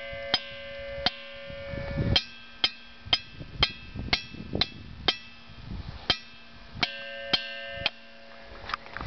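Small steel hammer tapping ringing-rock boulders, about fourteen quick strikes at roughly two a second. Each strike sets the rock ringing with a bell-like tone that carries on between strikes. The pitch changes as different spots are struck and is lower through the middle stretch.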